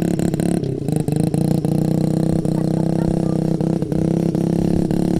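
Honda CRF50 dirt bike's small single-cylinder four-stroke engine running at a steady speed.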